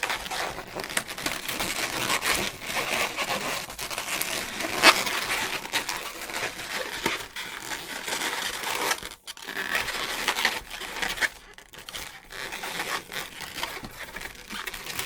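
Inflated latex modelling balloons being twisted and tied by hand: continuous squeaky rubbing and crinkling of the latex, with one sharper crack about five seconds in.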